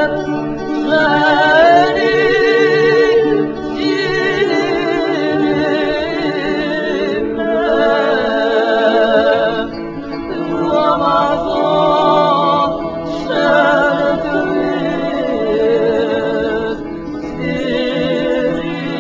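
Women's vocal group singing a Georgian song together in harmony, with long held notes and wide vibrato, phrase after phrase.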